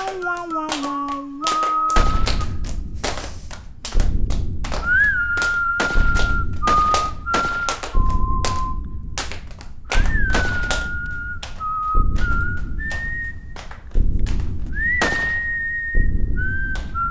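Western-style film score: a lone whistled melody of held notes with sliding attacks, over a deep low hit every two seconds and sharp clicking percussion.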